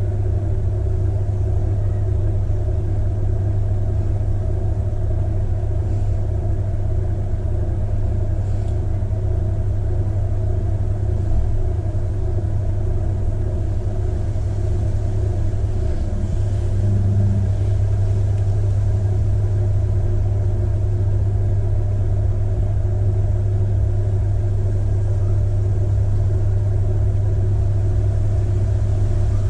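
Electric potter's wheel running, a steady low motor hum, a little louder about halfway through.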